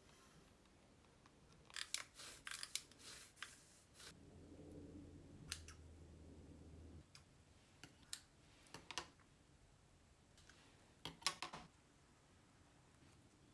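Faint handling sounds of small crafting tools at a work table: several clusters of short, sharp clicks, with a faint low hum in the middle.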